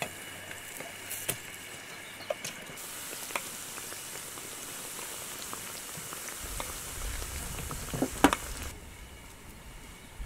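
Dough pieces deep-frying in hot oil in a wok: a steady sizzle and bubbling, with scattered light clicks and a couple of sharper knocks about eight seconds in.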